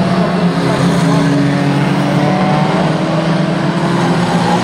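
Engines of several small hatchback banger racing cars running hard in a steady drone, one engine note slowly rising as it revs.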